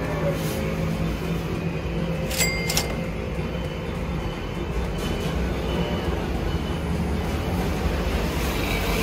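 Steady drone of street traffic under background music, with two short sharp clicks close together about two and a half seconds in.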